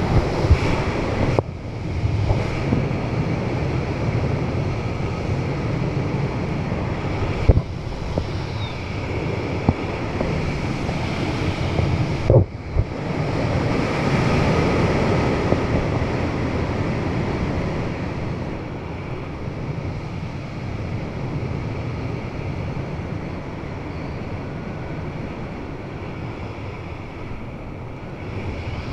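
Wind rushing over the camera microphone during descent under an open parachute canopy: a steady rush, broken by a few brief knocks and dropouts in the first half and easing a little after that.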